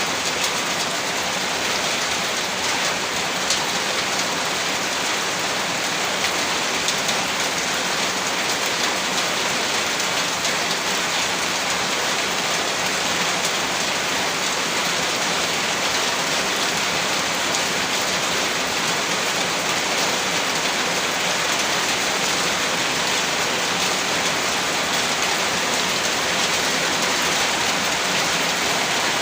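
Steady rain: an even, dense hiss of falling drops with faint individual drop ticks, unchanging throughout.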